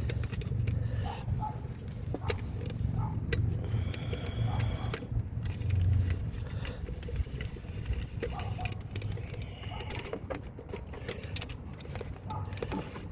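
Scattered light clicks and clinks of a hand tool being worked onto a nut on the underside of a car, over a low rumble of handling noise.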